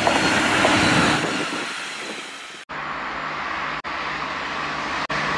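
T-gauge model train running along its track: a steady, noisy whir with a low hum underneath. It is broken off abruptly about two and a half seconds in and twice more near the end.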